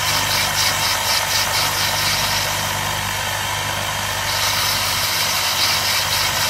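Small bench lathe running steadily while a model diesel's cylinder liner is worked by hand on a spinning brass grinding arbor, giving a high scraping that pulses several times a second and weakens for a moment in the middle. The bore is being ground out to a smooth finish and slight taper for a good compression seal.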